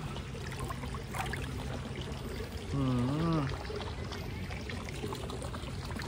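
Swimming-pool water trickling and pouring in a steady flow, with one brief hum from a man's voice about three seconds in.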